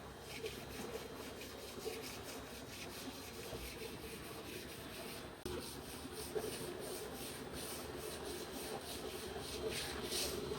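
Hand sanding of a repaired alloy wheel: rapid, repeated back-and-forth abrasive strokes on the metal.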